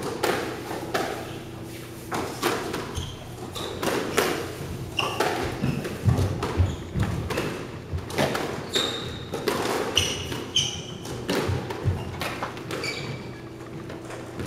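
Squash rally in a front-court drill: repeated sharp hits of racket on ball and ball on the front wall and floor, echoing in the court, with shoes squeaking briefly on the wooden floor several times.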